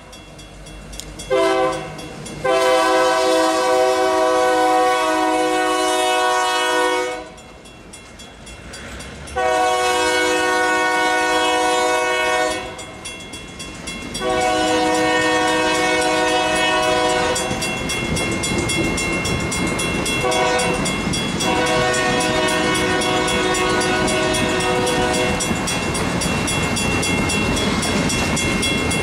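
Iowa Interstate GP38-2 diesel locomotive's air horn sounding for grade crossings: a short toot, three long blasts, a short one, then a final long blast, ending on the standard long-long-short-long crossing signal. Under and after the blasts, passenger cars roll past with steady wheel-on-rail noise and clacking over rail joints, which grows louder from about two-thirds of the way in.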